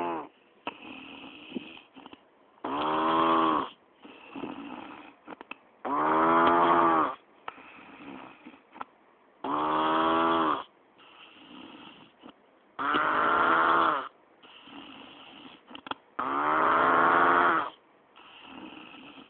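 A person snoring heavily in sleep: five loud, pitched, rasping snores come about every three and a half seconds, with a quieter breathy sound between each.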